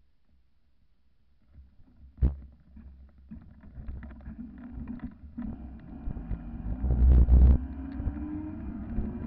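Electric fat bike's 250 W, 48 V motor whining under acceleration, its pitch climbing steadily, over growing road rumble and wind on the microphone. A sharp knock comes about two seconds in, and the loudest rumble is about seven seconds in.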